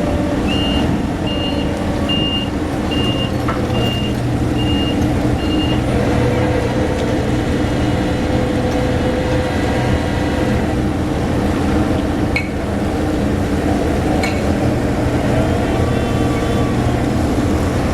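Heavy machinery or vehicle engines running steadily, with a vehicle's warning beeper sounding about seven times, evenly spaced, in the first six seconds and then stopping.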